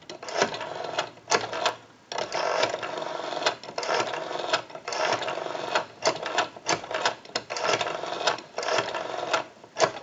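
ITT 554 rotary telephone dial being pulled round and let spring back, digit after digit: a run of several whirring returns, each with a quick train of pulse clicks and a click at the finger stop, as a phone number is pulse-dialed.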